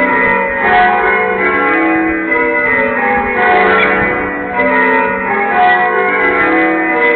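Several church bells ringing in rapid, even succession, a loud and continuous run of overlapping strikes at different pitches.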